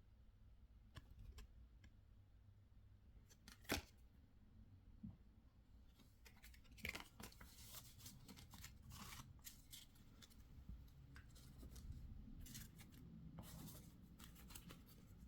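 Quiet handling of trading cards and their packaging: scattered soft rustles and light clicks, one sharper click about four seconds in, then a busier run of quick sliding and rustling strokes from about six seconds on.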